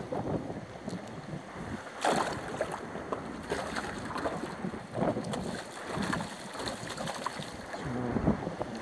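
Shallow seawater sloshing and splashing around a wading angler's legs and hands as he releases a fish, in irregular surges, with wind buffeting the microphone.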